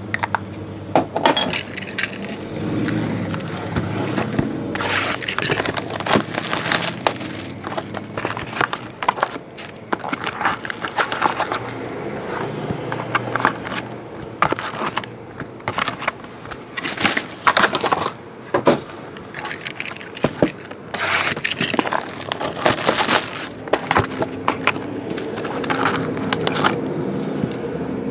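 A 2012 Bowman Chrome trading-card box being opened and emptied by hand: cardboard and wrapping scraping and rustling, with foil card packs crinkling and clicking as they are handled, in quick irregular bursts.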